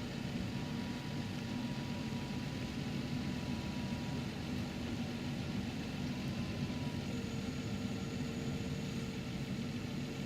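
Steady car engine and road noise heard from inside a moving vehicle, a low hum under an even hiss.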